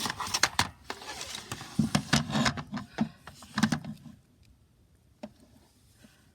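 A quick run of sharp clicks and knocks, some with a dull thud, for about four seconds, then it goes quiet apart from a couple of faint ticks.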